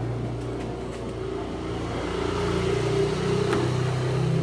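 A motor vehicle's engine running, its hum rising slightly in pitch and loudness toward the end.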